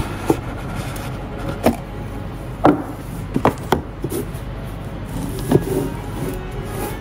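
A cardboard smartwatch box being handled and opened: rubbing and about six short knocks as it is pulled open and set down on the table, the loudest a little before the middle.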